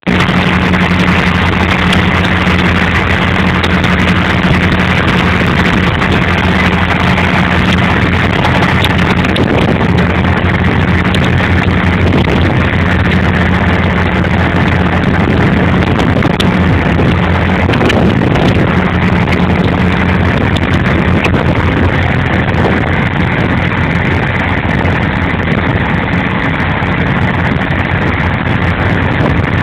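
A ship's engine running steadily under way, a constant low drone with a deep hum, over a steady rush of water.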